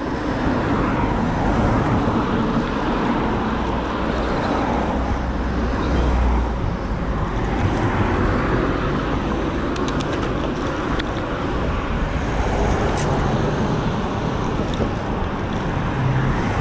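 Road traffic passing close by over a steady rush of wind and road noise from a moving bicycle, with a few faint ticks about ten and thirteen seconds in.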